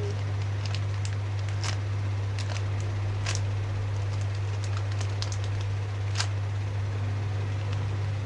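Scattered short crackles and ticks of a clear plastic bag being handled as fingers squeeze a squishy toy inside it, over a steady low hum.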